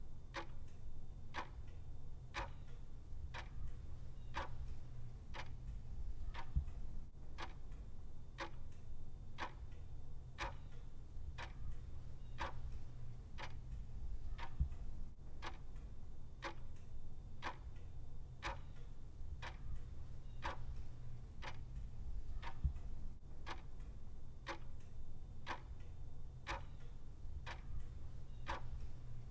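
Clock ticking steadily and evenly, about one and a half ticks a second, over a low steady hum.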